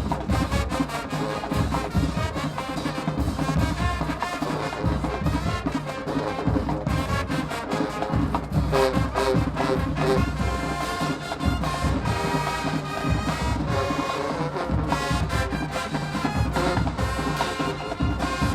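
High school marching band playing loudly: brass horns over a steady pounding of drums.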